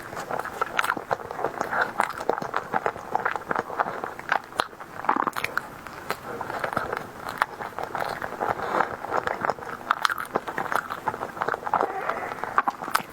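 Close-miked eating sounds from a mukbang: biting into and chewing a tiger skin dessert, with a steady stream of short, sharp mouth clicks and crackles.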